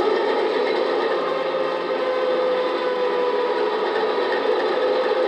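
Model BR 232 diesel locomotive's DCC sound decoder playing a recorded diesel engine idling steadily, heard through a small EM1 speaker fitted in the fuel tanks.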